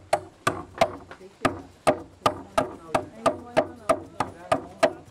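Long knife chopping against wood with quick, even strokes, about three sharp hits a second, each ringing briefly.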